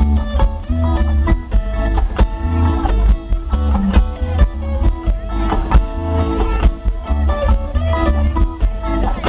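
Loud music with a heavy, pulsing bass beat and a plucked-string melody.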